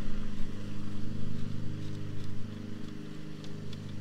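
A steady low mechanical hum, one pitch holding several even tones, as from a machine running.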